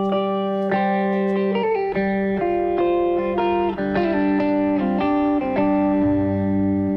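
Background music: a twangy guitar plays held notes, sliding between some of them, with a low bass line coming in near the end.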